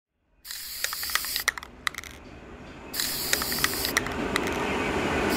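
A steady high hiss with irregular sharp clicks over it. It starts about half a second in, fades for about a second midway, then returns.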